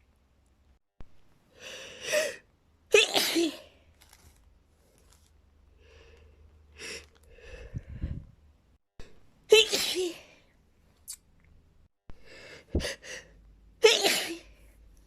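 A young woman sneezing several times in a row, three of the sneezes loud, with quieter breaths between them.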